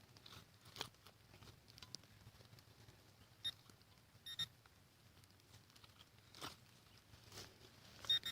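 Handheld metal-detecting pinpointer probe giving a couple of short beeps, then near the end a rapid, even run of beeps, about seven a second, as it sits over a buried metal target. Faint scattered ticks and clicks in between.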